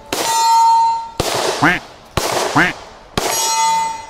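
Four pistol shots about a second apart, each answered by the clang of a steel target hit. The target rings on with a clear tone that fades over most of a second.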